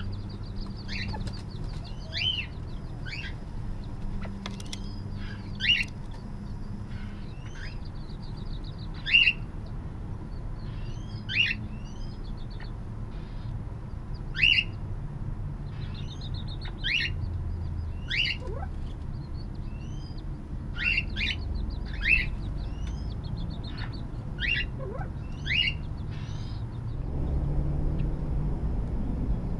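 California quail giving short, sharp chirping calls, repeated irregularly every second or so, with a quieter rapid trill from another bird behind them.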